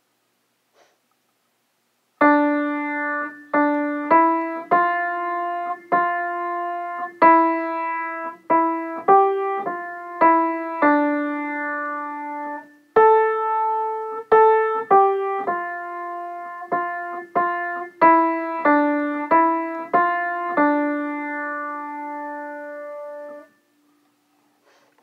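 Piano played slowly, one note at a time, in a simple single-line melody. It starts about two seconds in and ends near the end on a long held final note.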